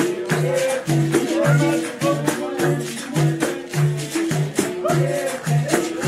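Capoeira music: percussion with a shaken rattle and a tambourine over a steady, evenly repeating low note pattern, with singing.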